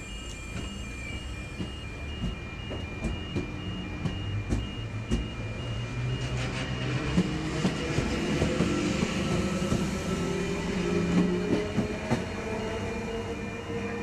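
Double-deck electric passenger train pulling away from a station platform: a motor whine slowly rising in pitch as it gathers speed, over the rumble of the cars with sharp clicks from the wheels running over the rails.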